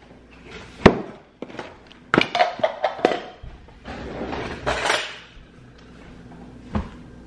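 A milk carton and a cereal box being handled and set down on a kitchen countertop. There are several sharp knocks as they are put down, with shuffling and rustling noises in between.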